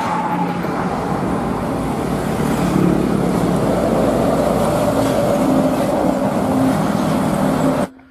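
Road traffic: the diesel engine of an Isuzu tanker truck running steadily as it drives toward and close by, along with passing cars and motorbikes. The sound cuts off abruptly near the end.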